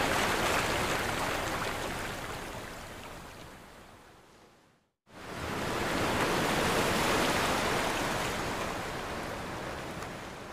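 Steady rush of water, like ocean surf, that fades out to silence about five seconds in, fades back in, and slowly dies away near the end.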